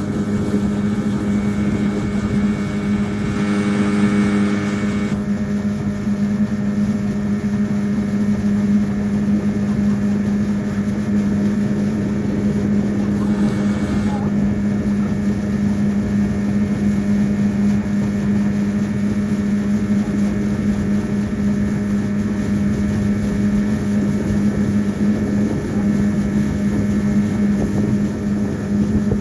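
A boat's motor running steadily under way, a constant engine drone with a strong low hum.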